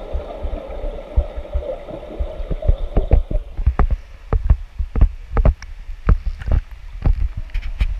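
Underwater hum with low thumps, then water splashing and sloshing against a GoPro's housing as it breaks the surface of the pool: sharp, irregular slaps of water that come thick and fast from about three seconds in.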